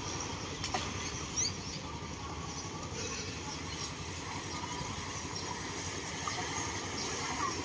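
Steady low outdoor background noise with a few faint, brief children's calls in the distance.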